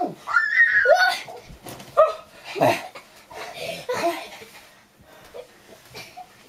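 Children laughing and squealing while play-wrestling, loudest in the first three seconds, then dying down.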